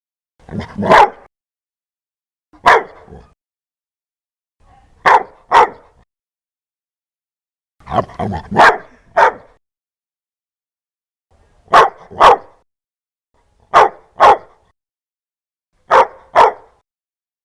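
A dog barking loudly in short groups of one to three barks, about every two seconds, with silence between the groups.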